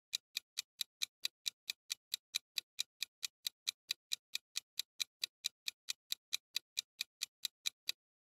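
Countdown timer sound effect: a clock ticking evenly, about four ticks a second, stopping just before the end as the countdown runs out.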